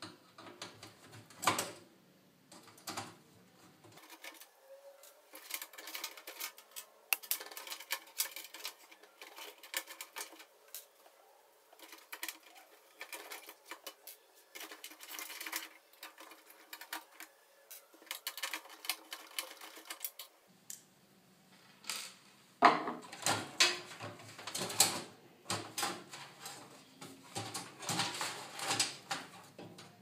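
Irregular clicking, rattling and knocking of plastic power connectors and cables being pulled from a motherboard inside a sheet-metal PC case. Busy stretches of clicks come in two runs, and a sharper knock about two-thirds of the way through begins a second run as the board is worked loose and lifted out.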